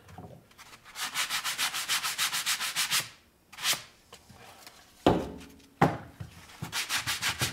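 Hand sanding on the edge of a wooden drawer piece, rapid back-and-forth scratchy strokes at about eight a second, cleaning old glue off the joint so it will fit back together flush. The strokes pause in the middle, with a single knock about five seconds in, then start again near the end.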